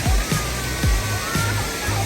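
Background music with a steady electronic beat, about two kick-drum hits a second, and a thin gliding melody. Under it runs the steady rush of Pearl Shoal Waterfall.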